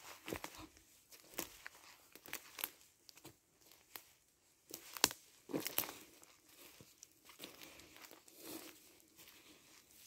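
Footsteps crunching through dry fallen leaves and twigs: an irregular run of crackles and rustles with a few sharper snaps, the loudest about five seconds in.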